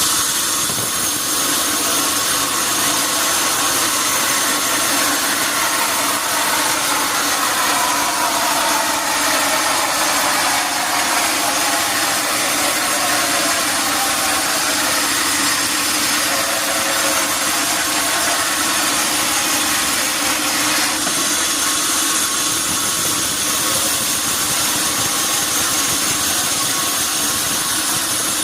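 Sawmill saw running under load as it cuts a red mahogany log: a loud, steady machine noise, with a few falling tones in the middle.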